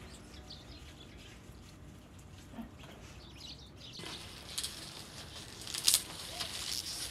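Rustling and crackling of a bunch of fresh green onion stalks being gathered and squeezed in the hands close to the microphone, starting about halfway through, with a sharp crackle near six seconds. Before that there is only a faint background with a few short chirps.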